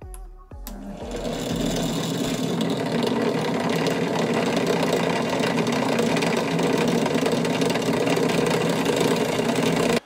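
Bench drill motor running steadily while its small bit drills a hole through a plastic seat-belt extender arm and the metal strip inside it. The sound starts about a second in and builds for a moment before holding level.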